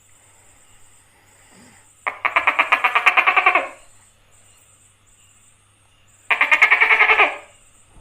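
Tokay gecko calling with two rapid rattling trills, the first about a second and a half long, the second about one second, with a pause between.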